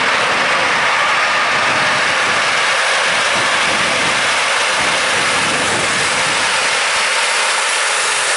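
Inflatable liferaft inflating from its gas cylinder: a loud, steady hiss of gas rushing into the buoyancy tubes as they fill and the canopy rises.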